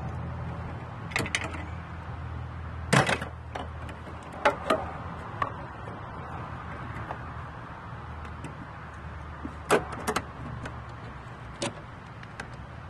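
Scattered sharp clicks and knocks, about eight in all, from hands and parts being handled in a car's engine bay, over a steady low hum.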